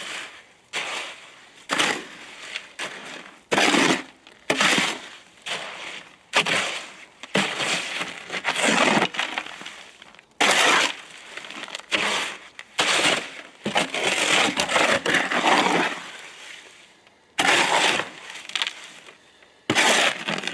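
Cement being mixed by hand: repeated harsh, gritty scrapes of a tool dragged through wet cement mix, roughly one stroke a second at an uneven pace, each starting sharply and fading.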